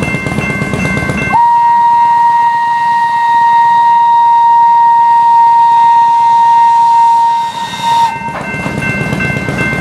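Thomas the Tank Engine locomotive blowing one long, steady single-note whistle from about a second and a half in until about eight seconds in, with the train rumbling over a grade crossing before and after it. Fainter steady high ringing from the crossing signals runs underneath.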